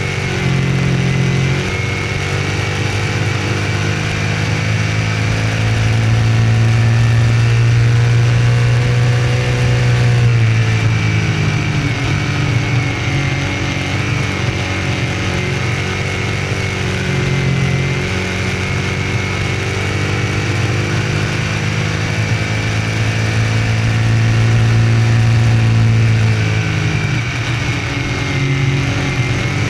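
Dirt modified race car's small-block V8 running at speed around a dirt oval. It swells louder twice and eases back in between, with the throttle lifting and reapplying through the laps.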